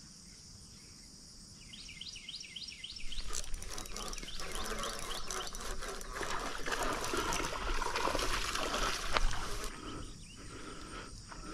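A hooked bass being fought to the bank on a fishing rod, splashing and thrashing in the pond water as a rushing, crackling noise that starts about three seconds in and cuts off near the end. Insects chirp in a quick repeating rhythm before it starts.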